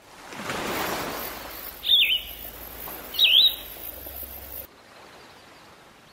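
Outdoor nature ambience fading in: a steady noisy background with two loud, short bird calls, each a quick falling whistle, about two and three seconds in. The background drops to a lower level near five seconds in.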